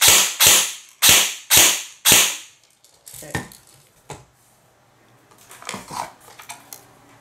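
G&G ARP 556 airsoft electric gun firing on semi-auto, five sharp shots about half a second apart, the last about two seconds in, as a test after a GBL piston and cylinder set was fitted. A few light clicks and handling noises follow as the gun and chronograph are moved on the bench.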